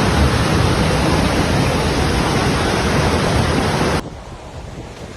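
Loud steady rushing noise that drops abruptly to a quieter rush about four seconds in.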